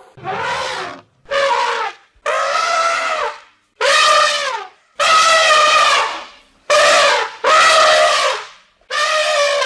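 Elephant trumpeting: a string of about eight short, high trumpet calls, each lasting about a second, most dropping in pitch as they end.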